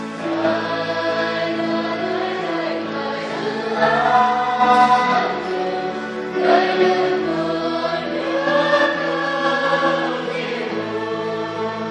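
Mixed choir of men and women singing a hymn in slow, long-held chords.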